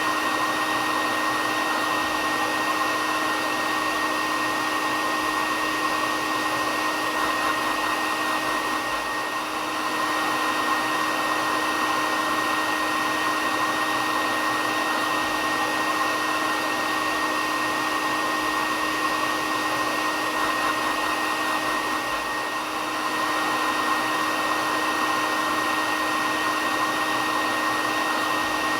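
Hair dryer running steadily: an even blowing hiss with a constant hum and a high whine. It dips slightly in loudness twice, about a third of the way in and again about three quarters in.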